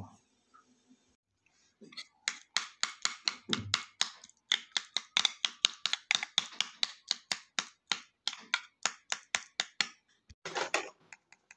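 A metal spoon mashing soft fruit flesh in a ceramic bowl: quick, even clicks and scrapes of the spoon against the bowl, about four a second, stopping about ten seconds in.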